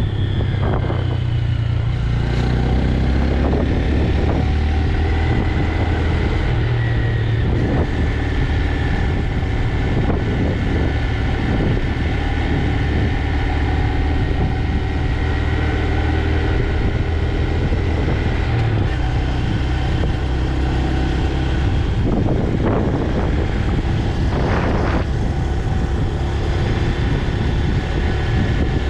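Stock 2025 Honda Grom's single-cylinder engine running while riding, its pitch falling at the start and then holding fairly steady, with a few shifts in pitch as the throttle changes.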